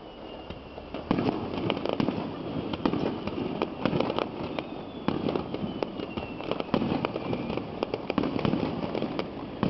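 Fireworks going off in a rapid, irregular run of bangs and crackles, with faint falling whistles now and then.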